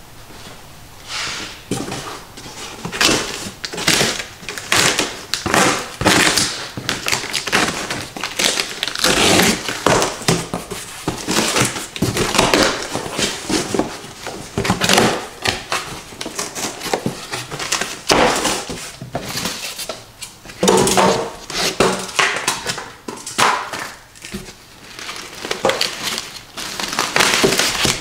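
Duct tape being ripped off a cardboard box and the cardboard flaps pulled open, in a long run of irregular tearing, crackling and thudding; plastic bag wrapping crinkles near the end.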